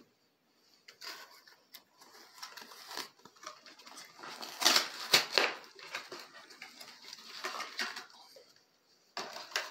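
Packaging of a box of baseball cards being torn open and handled: irregular crinkling and rustling of plastic wrap and cardboard with small clicks, loudest about halfway through.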